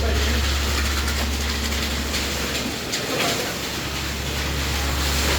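A heavy engine running steadily on the concrete site, with a mechanical clatter and hiss over it. The low engine drone drops away briefly about three seconds in.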